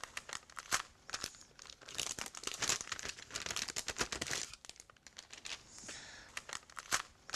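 Protective film being peeled and pulled off a new laser-printer image drum unit, crinkling and crackling. It is loudest between about two and four and a half seconds in.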